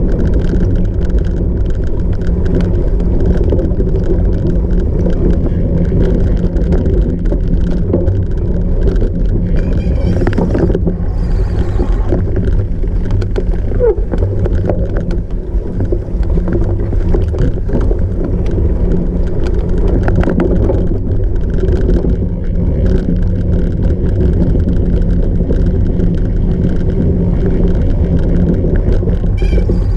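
Steady low rumble of wind and rolling tyres from a cyclocross bike being ridden, with frequent short clicks and rattles.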